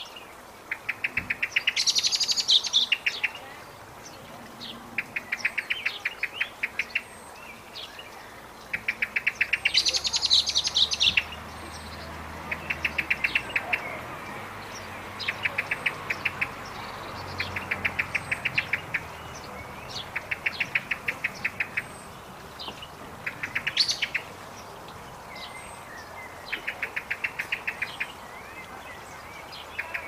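A bird's rapid trill of short clicking notes, repeated about every two to three seconds, with a few louder, brighter phrases among them.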